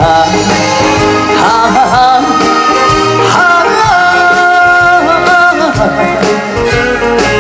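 Trot song played live by a band with a steady beat, with a long sung note held and wavering over the accompaniment in the middle.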